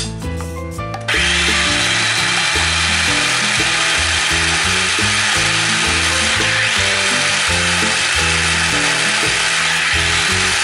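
Electric mini chopper's motor and blades running steadily, grinding jamun pulp into a fine paste; it starts about a second in and cuts off at the end. Background music plays underneath.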